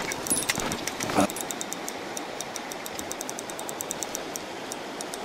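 Steady rush of a shallow river running over stones. About a second in there is a brief low sound, and after it a quick run of faint ticks, about five or six a second.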